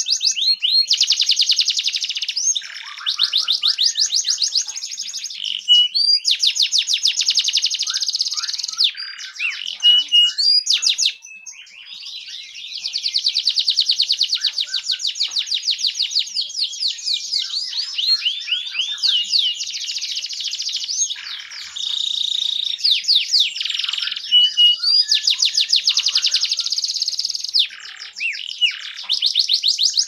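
Canary singing a long song of rapid trills: runs of fast repeated notes, each a second or two long, changing from run to run, with a brief break about eleven seconds in.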